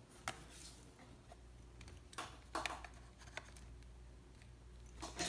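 Quiet handling noises: a few light clicks and taps as a MacBook Pro's lid is lifted and a small USB device on its charging cable is handled, over a low steady hum.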